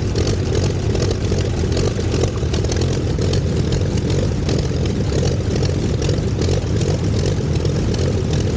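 Curtiss OX-5 V8 aero engine in the Luxior special running steadily at idle, heard close up from the car.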